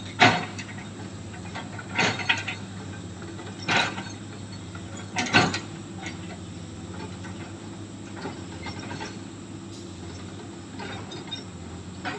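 Excavator diesel engine running steadily, with four loud sharp knocks about every second and a half in the first half, then only the engine.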